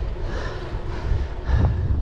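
Wind buffeting the microphone over a low, uneven rumble from a moving bicycle.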